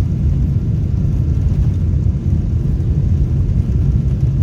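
Steady low rumble of a jet airliner.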